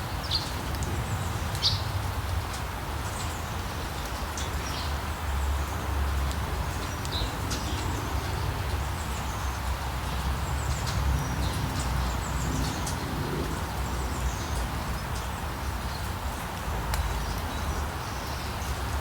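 Steady rain falling on a street, with birds chirping briefly here and there throughout, over a low rumble.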